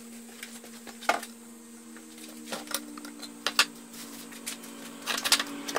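Scattered light clicks and knocks as a metal quart paint can is handled, set down and its lid pried off, over a steady low hum.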